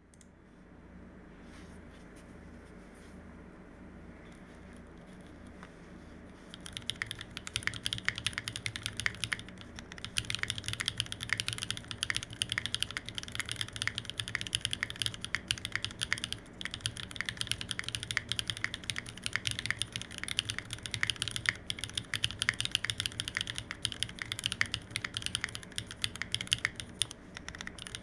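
Fast continuous typing on a Monstargear Sangeo65 custom mechanical keyboard with an aluminium plate, stock pre-lubed Owlab Neon linear switches (force-break modded), modded TX stabilizers and GMK Hennessey keycaps: a dense, clacky run of keystrokes. It sets in about six seconds in, after a quieter opening, with brief pauses near ten and sixteen seconds.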